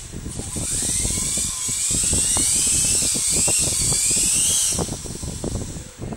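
HQ852 RC toy helicopter's small electric motors whining as its rotors spin on the floor. The pitch rises and falls several times, and the whine cuts off about three-quarters of the way through. A low rumbling thump runs underneath throughout.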